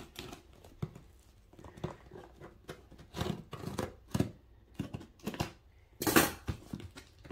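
Scissors cutting along the seam of a cardboard shipping box: a series of short snips and scrapes, with a louder burst of noise about six seconds in.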